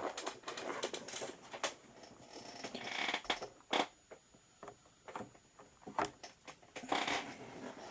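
Hands handling a laptop and plugging in its power cable: scattered light clicks and knocks at irregular intervals.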